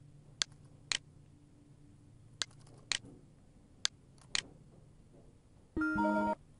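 Computer mouse clicking six times, in three pairs. Near the end comes a short electronic tone of several steady pitches from the Lync softphone as it starts placing an outgoing call.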